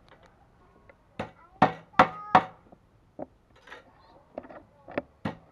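Heavy kitchen knife chopping grilled duck on a round wooden chopping block: about eight sharp chops with a short metallic ring. The loudest strokes come in a quick run about a second and a half in, then lighter chops near the end.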